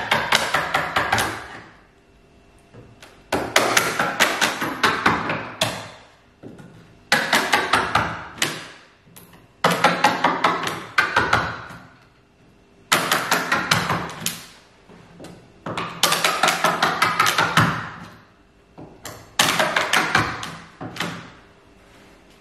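Runs of rapid knocking on a fibreglass boat hull sitting in its mould, seven bursts of quick taps about two seconds each. The hull is being knocked along its edge to break it free of the mould, and how the knocks sound shows how far the release has travelled down the boat.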